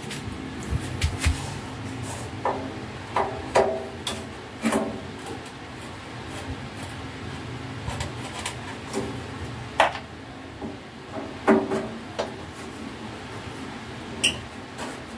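A screwdriver turning screws on an arc welder's sheet-metal case: irregular clicks and knocks of the tip on the screw heads and the panel, some with a short metallic ring.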